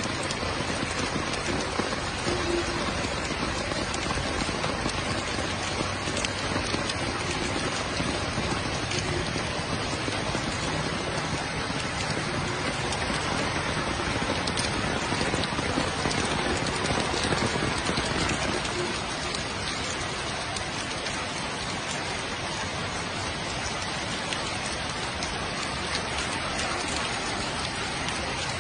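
Heavy rain falling, a steady dense hiss that swells slightly about two-thirds of the way through, then eases a little.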